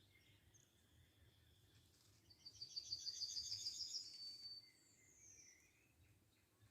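A small songbird sings one song: a fast trill of repeated high notes lasting about two seconds, ending on a held high note, followed by a short falling whistle.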